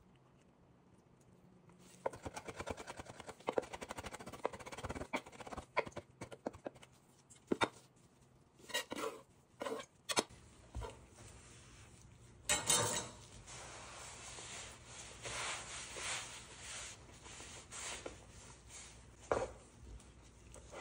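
Black nitrile-gloved hands tearing and working kalamata olives on a wooden cutting board, a dense close crackle with sharp clicks, then a chef's knife scraping across the board to sweep the chopped olives into a bowl. A single thump near the end.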